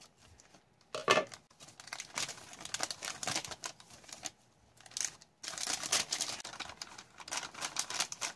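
Plastic packaging of an MRE flameless ration heater being cut open with a knife and handled, crinkling and rustling in irregular bursts, the loudest about a second in.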